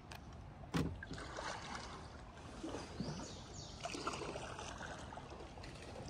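Kayak paddle strokes: the blade splashing into and out of the water, with water trickling off it. A single sharp knock comes just under a second in.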